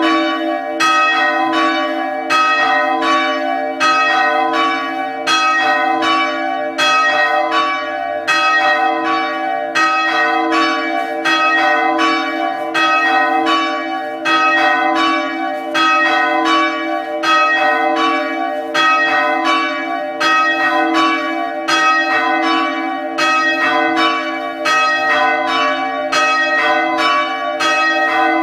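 Two church bells swung by bell ropes, striking in a steady alternating rhythm. Each stroke is followed by a long hum that carries on underneath the strokes.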